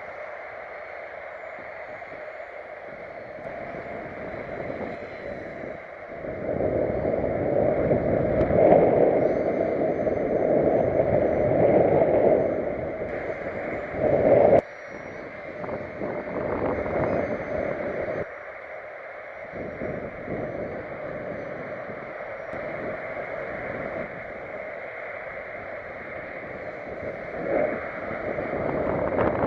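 Gusty wind buffeting the microphone in surges, the strongest lasting from about six to fifteen seconds in and cutting off abruptly.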